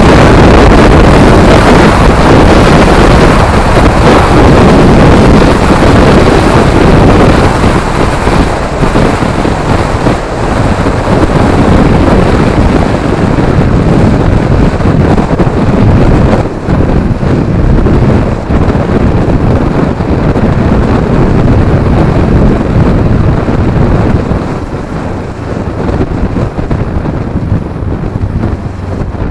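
Heavy wind rush on a motorcycle rider's helmet-mounted camera microphone at road speed, with the bike's engine and tyre noise mixed in. It eases somewhat near the end as the bike slows in traffic.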